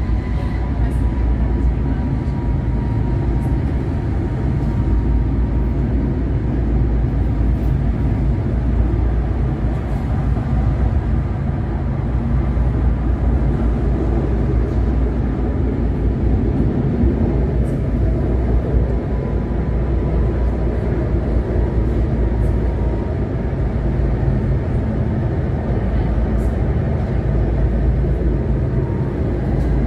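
Tram running along its rails, heard inside the car: a steady low rumble of wheels on track, with a thin high whine that comes and goes.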